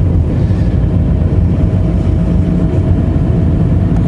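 Steady low rumble of a manual-transmission car driving, its engine and road noise heard from inside the cabin, with a faint steady whine above it.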